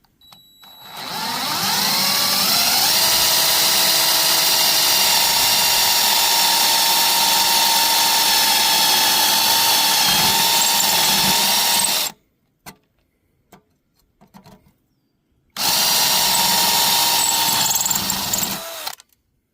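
Electric drill drilling out the rivets that hold a lawn mower engine's pull-cord housing. It spins up over a couple of seconds and runs steadily for about ten seconds. It stops, a few light clicks follow, and then it runs again for about three seconds.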